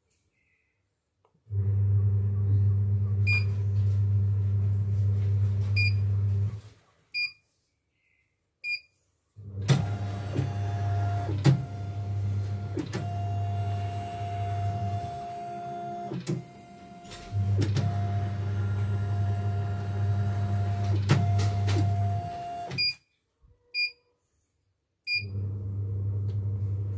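Portable computerized embroidery machine (an Elyana-badged CNY) running a test design: its motors hum steadily in runs of several seconds, the middle runs louder with clicks and a steady whine as it stitches. A short high beep recurs in the short stops between runs.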